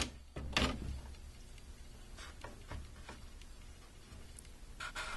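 Light handling sounds of wires and plastic TV parts being moved: a couple of sharp clicks at the start, faint scattered ticks, and a few more clicks near the end.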